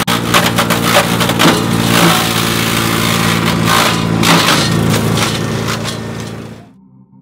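Wood chipper running, its engine drone steady underneath as branches are fed in and crack and splinter through the blades. The sound fades out near the end.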